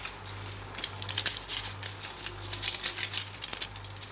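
Granulated seasoning shaken from a sachet, pattering onto a pile of boiled chicken pieces in a pot, in two spells of rattling: about a second in and again around three seconds in, over a steady low hum.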